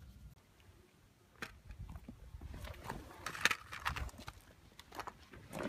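A person walking: irregular footsteps and scuffs, starting about a second in.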